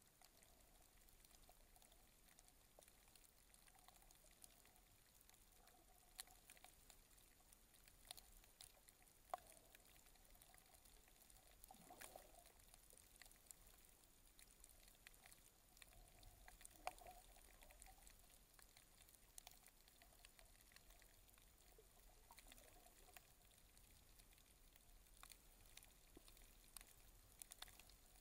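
Near silence underwater: faint scattered clicks and crackles over a low hiss, with a couple of soft water swishes.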